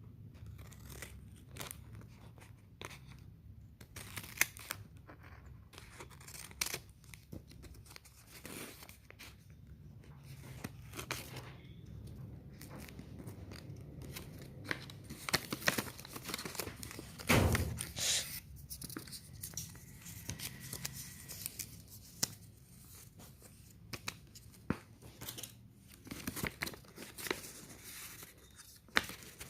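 Blind-box packaging being opened by hand: repeated tearing, rustling and crinkling of the wrapper with small handling clicks. A louder rip comes about seventeen seconds in.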